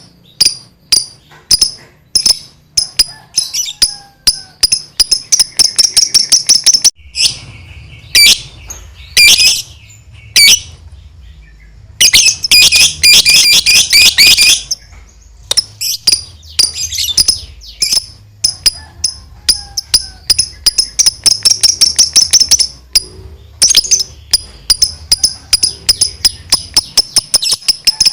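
Lovebird singing a long 'ngekek': long runs of rapid, shrill, repeated chattering notes, broken by short pauses. The runs turn into dense, unbroken bursts about a third of the way in and again near the middle.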